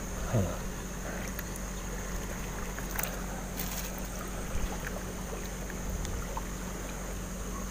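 River water lapping and washing against a rocky bank in a steady wash, with a few faint clicks of fingers breaking apart soft rock about three to four seconds in.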